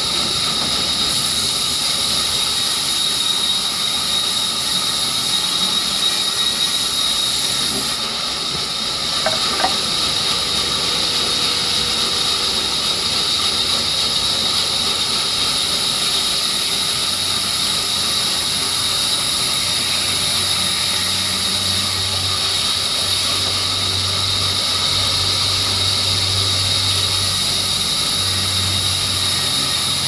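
Large sawmill circular saw running steadily with a high whine while ripping a slab of wet rain tree wood.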